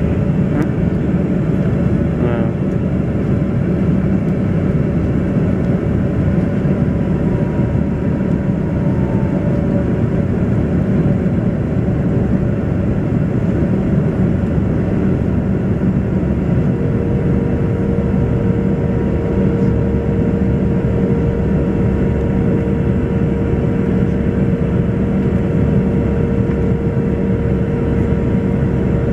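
Steady engine and airflow noise heard inside an airliner cabin as the plane descends toward landing. A steady hum joins the noise a little past halfway through.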